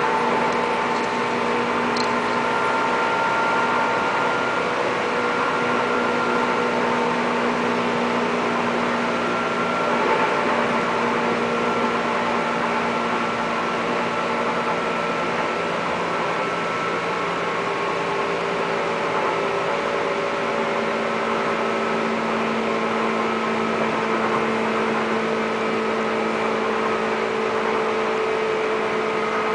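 Steady running noise inside a limited express train cabin at speed: an even rumble of the train on the rails, with a few faint steady tones that drift slightly in pitch.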